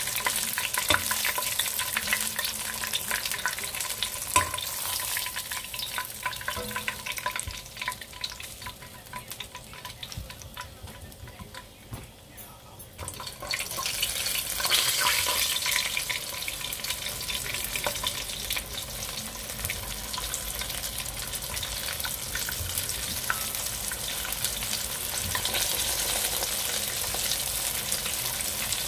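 Chicken wings deep-frying in hot oil in a pot: a steady sizzling hiss and crackle. The sizzle thins out for a few seconds as the last pieces remain, then surges sharply about halfway through when a fresh batch of flour-coated wings goes into the oil, settling into a steady full sizzle.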